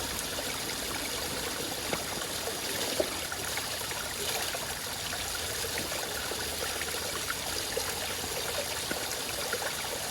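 Shallow creek water running steadily over rocks, with trickling. One sharp click stands out about three seconds in.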